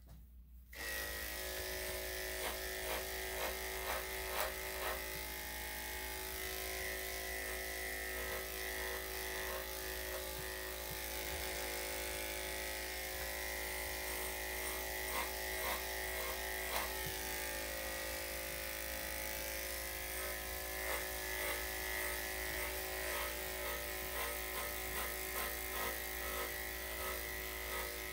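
Electric dog grooming clippers switching on about a second in and running with a steady buzzing hum while clipping a small dog's coat, with light irregular clicks as the blade moves through the fur.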